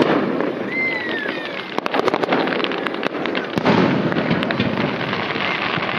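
Aerial fireworks shells bursting in a rapid run of bangs and crackles, with one louder bang about three and a half seconds in.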